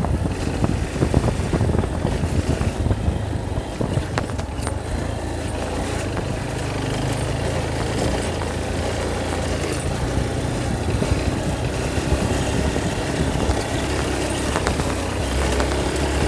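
Motorcycle engine running steadily as the bike is ridden, with scattered knocks and rattles in the first few seconds.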